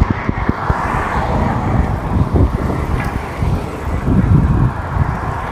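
Wind buffeting the microphone of a rider on a moving bicycle, over steady road traffic noise that swells about a second in.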